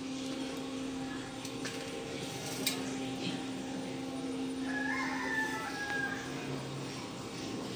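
A few light clicks and taps as a custard apple is broken open and its halves are set down on a steel plate, over a steady low hum. About five seconds in, a short bird call, such as a rooster's, sounds in the background.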